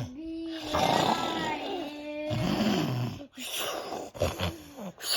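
A child imitating snoring with his voice: about four rasping, drawn-out snores, the first the longest at about two seconds.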